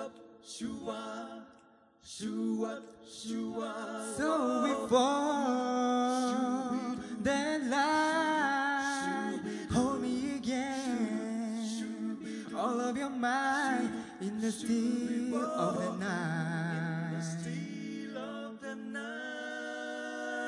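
A cappella vocal group singing live in close harmony, with no instruments, and ending on a long held chord.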